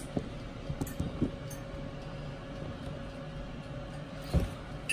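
Big Boss oil-less fryer's fan running with a steady hum, with a few light knocks from dishes being handled at the sink about a second in and a single thump near the end.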